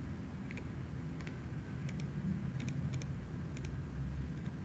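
Computer mouse clicking about six times at irregular intervals, several of them quick double clicks, over a low steady rumble.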